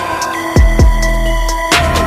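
Background electronic music with deep bass kicks, synth tones and hi-hat clicks in a steady beat.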